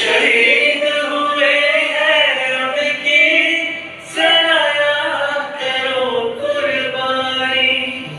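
Song with sung vocals, long held notes sliding in pitch in phrases, with a short break about four seconds in.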